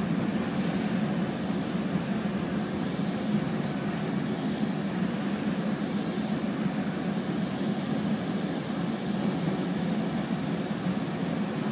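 Steady low hum and rumble of a Metrolink commuter train heard from inside a passenger car, even throughout with no sudden knocks.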